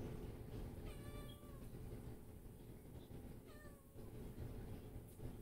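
A cat meowing twice: a longer, falling meow about a second in and a shorter one about three and a half seconds in.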